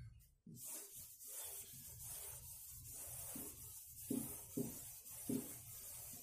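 Blackboard duster rubbing chalk off a chalkboard in repeated back-and-forth strokes, starting about half a second in, with a few firmer strokes in the second half.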